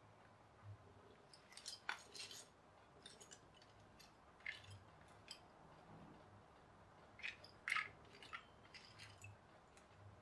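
Plastic building bricks clicking and clattering as they are handled, pulled apart and set down, in irregular clusters of light clicks.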